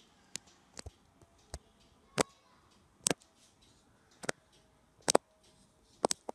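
A series of about eight sharp, short clicks at uneven intervals, roughly one every half second to a second, over a quiet background.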